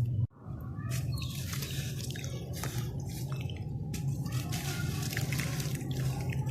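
Wet sand slabs being crumbled and squished in water: a dense run of gritty crackles and wet squelches with drips, over a steady low hum. The sound cuts out for a moment just after the start.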